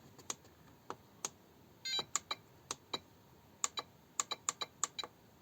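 Buttons on a FlySky FS-i6X radio transmitter being pressed to work through its menus: a run of short, irregularly spaced clicks that come quicker after about three and a half seconds.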